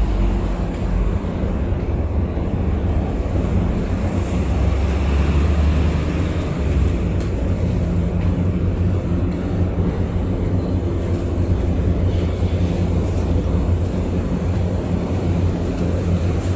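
Outdoor ambience: a steady low rumble, with no single sound standing out.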